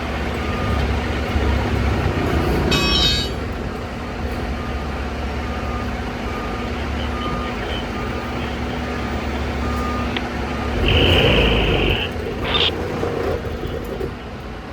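Heavy trucks idling with a steady low rumble while a reversing alarm beeps about every two-thirds of a second. About 11 s in, a one-second high steady tone sounds, the loudest thing here.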